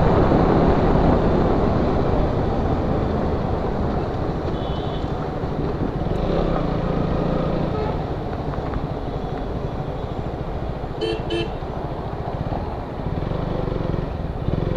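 KTM Duke 125 single-cylinder motorcycle riding at speed on a highway, a steady rush of engine, road and wind noise. A vehicle horn sounds briefly about five seconds in, then toots twice in quick succession about eleven seconds in.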